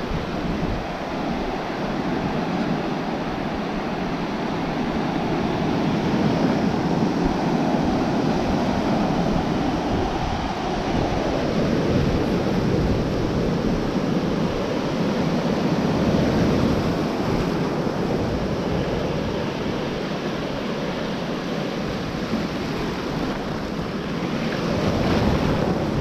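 Ocean waves and surf rushing steadily, swelling louder about six seconds in and again near the end, with wind buffeting the microphone.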